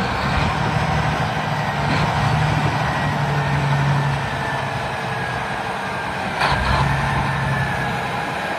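Diesel engine of heavy earthmoving machinery running steadily, with a faint high whine over the low hum. A single metallic clank comes about six and a half seconds in.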